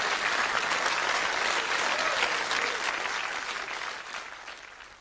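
Studio audience applauding steadily, then fading away over the last second or so.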